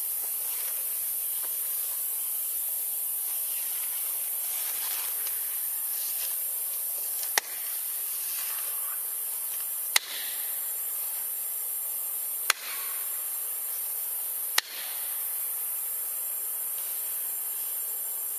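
Steady high-pitched hiss, broken by four sharp clicks about two to two and a half seconds apart in the second half.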